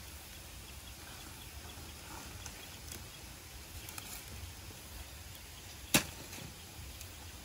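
A single sharp click or knock about six seconds in, over a faint steady hiss and low hum, with a few lighter clicks scattered before it.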